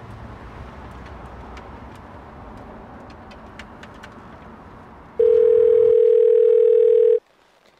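Telephone ringback tone heard on an outgoing call: one steady, loud ring about two seconds long, starting about five seconds in. Before it there is a low background hiss with a few faint clicks.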